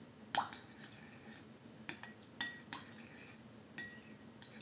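A stirring utensil clinking against a clear glass mixing bowl as a runny glue-and-water slime mixture is stirred: about six irregular, sharp clinks with a brief ring.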